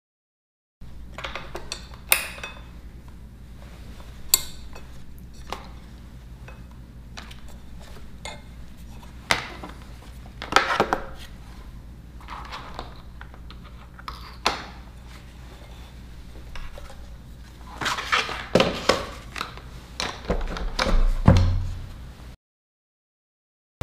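Handling sounds of a Cisco Meraki MC74 IP desk phone, its handset and packaging being unpacked and set down on a wooden desk: scattered clicks, knocks and plastic rattles with a few sharper taps, over a faint steady hum. The knocks come thicker in the last few seconds before the sound cuts off suddenly.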